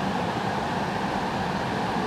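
Mountain stream water rushing steadily over and around bedrock slabs.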